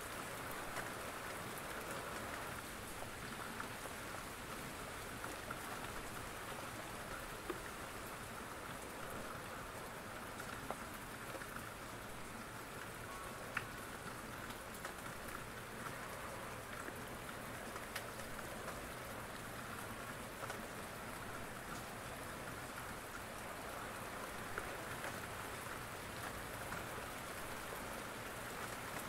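Steady rain falling, an even hiss of drops, with a few isolated sharp ticks standing out.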